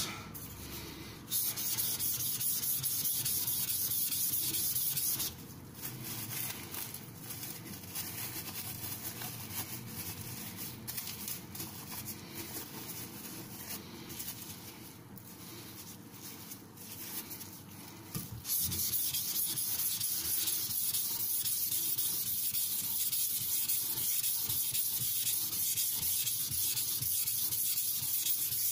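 Carbon-steel nakiri blade rubbing on a wet whetstone in its slurry: a steady gritty hiss of sharpening. It is louder for a few seconds near the start, softer through the middle and loud again for the last ten seconds.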